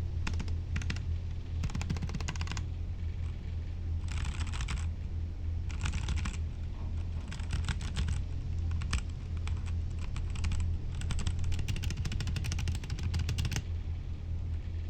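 Typing on a Dark Alien K710 budget mechanical keyboard: runs of rapid key clacks broken by short pauses, over a steady low hum.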